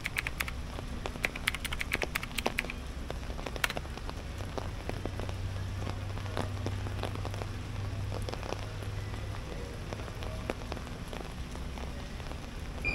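Steady rain falling on wet pavement, with scattered drops ticking and a quick run of high ticks in the first few seconds.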